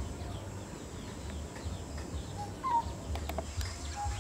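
A bird calling outdoors: a short two-note whistle, the second note higher, repeated about every second and a half. A few sharp clicks come a little after three seconds in, over a low rumble.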